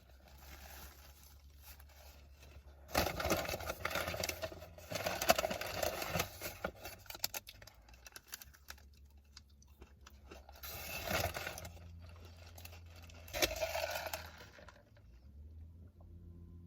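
Crinkling and rustling of paper and wrapper packaging in three irregular bursts, over a faint steady low hum.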